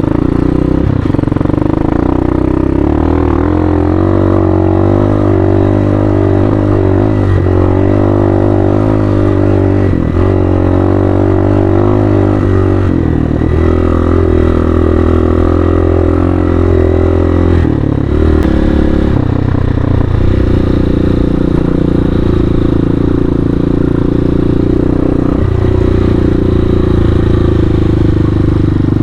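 Hawk 250 dual-sport motorcycle's engine running while ridden off-road, its pitch rising and falling with the throttle, with a few brief dips and breaks along the way.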